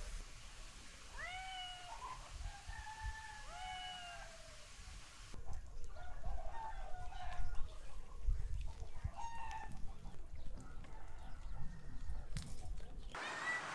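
Repeated short, high animal cries, each rising then falling in pitch, coming in small groups.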